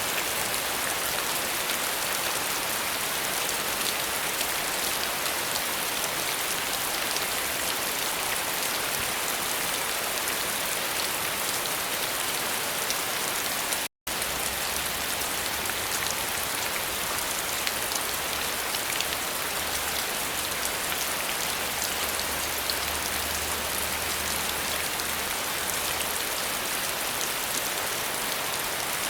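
Steady rain falling, an even hiss dotted with the patter of individual drops. It cuts out completely for a split second about fourteen seconds in.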